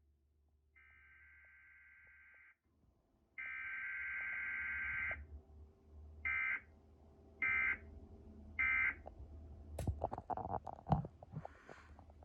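Emergency Alert System SAME digital data bursts, the screechy two-tone modem sound of an EAS header: two fainter bursts and a louder one of about two seconds each, then three short end-of-message bursts about a second apart. They mark the close of a required weekly test. Near the end there is a flurry of clicks and knocks.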